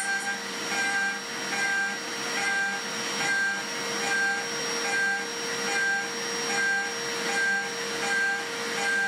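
Home-built CNC milling machine's spindle running at 12,000 rpm with a small end mill cutting steel: a steady high whine, with a cutting tone that swells and fades a little faster than once a second.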